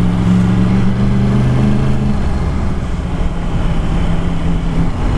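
Yamaha MT-10's crossplane inline-four running through an Akrapovic exhaust, heard on board while riding and picking up speed. The steady engine note breaks up into a rougher rumble about two seconds in.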